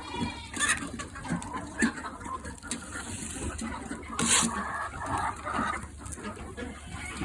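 Chickens clucking among themselves while feeding, with many short scattered taps and calls and one louder, sharper noise a little past four seconds in.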